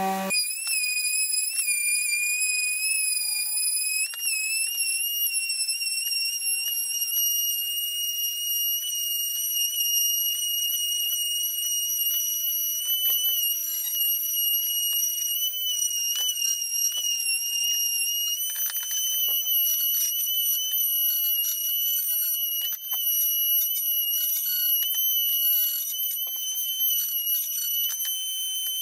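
DeWalt palm sander running over a plywood board, heard as a steady high-pitched whine that wavers slightly in pitch, with light scratchy scraping of the pad on the wood.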